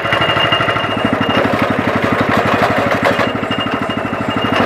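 Belt-driven sugarcane juice press running: its motor keeps up a rapid, even chugging while the steel rollers crush cane. A high steady whine drops out for about two seconds in the middle.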